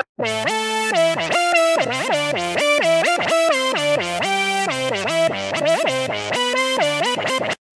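Xfer Serum software synthesizer bass preset playing a one-note-at-a-time line, the pitch gliding up and down between notes. Each note starts with a sharp attack. It cuts off suddenly near the end.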